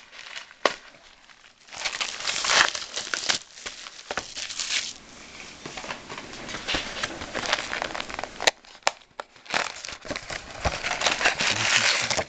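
Plastic wrapping and sealed trading-card packs crinkling as a card box is opened and the packs handled, in several rustling spells with a few sharp clicks.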